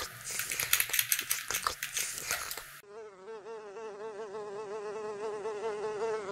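Rapid computer keyboard typing clicks, then about three seconds in a housefly buzzing in flight: a steady hum whose pitch wavers up and down.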